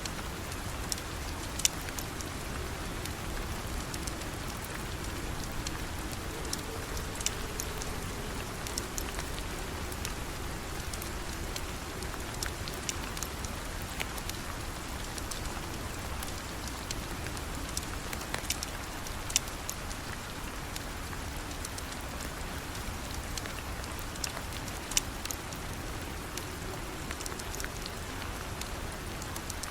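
Steady rain falling, with a wood fire crackling: scattered sharp pops stand out over the rain's even hiss.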